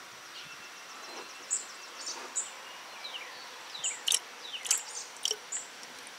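Small birds chirping, with short high notes and quick falling whistles, over a faint steady hiss. A few sharp clicks come near the end.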